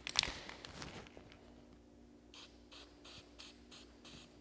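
A few clicks near the start, then an aerosol can of black spray paint sprayed in quick, short hissing bursts at about four a second, from about halfway in.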